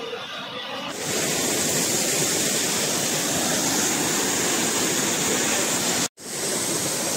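Dudhdhara waterfall on the Narmada river, water falling and rushing in a steady loud roar. It gets louder about a second in and cuts out for a split second about six seconds in.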